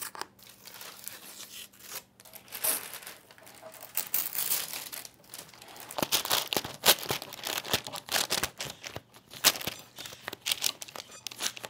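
Green painter's tape being peeled off a table edge, with the brown masking paper it held crinkling and rustling as it is pulled loose, in irregular rips and crackles.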